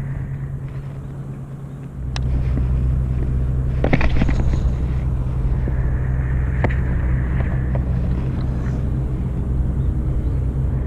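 A steady low engine drone starts about two seconds in and holds. Over it come a few sharp clicks and a brief faint whir from a level-wind baitcasting reel as the line is cast.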